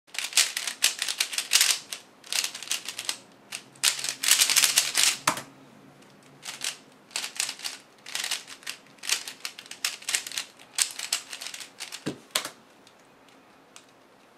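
A 3x3 speedcube turned fast by hand: bursts of rapid plastic clicks as the layers snap round, with short pauses between bursts. The clicking stops about twelve and a half seconds in.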